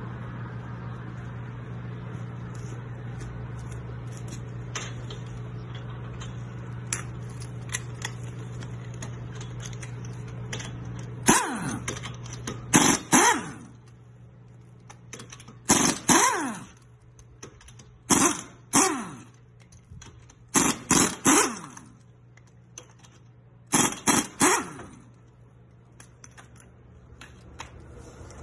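Pneumatic impact wrench hammering lug nuts loose in about six short bursts, each about a second long, with the air motor's whine falling off as the trigger is released. A steady low hum sits under the first half and fades out.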